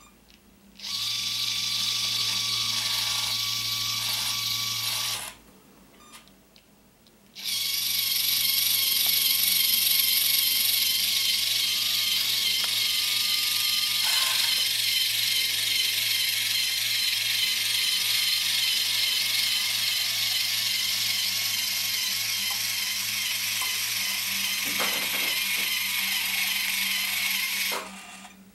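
Small geared electric motor of an RC-submarine depth-stabiliser rig, running with a steady whine and low hum. It stops after about four seconds, starts again about two seconds later, and runs for about twenty seconds before cutting off.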